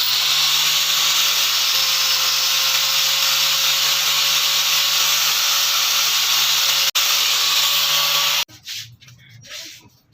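Electric power tool running steadily under load with a constant motor hum, as it grinds or sands. It stops abruptly about eight and a half seconds in, with a split-second break just before seven seconds.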